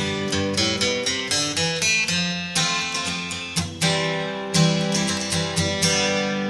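Background music: acoustic guitar plucked and strummed, with notes picked out over a steady low bass.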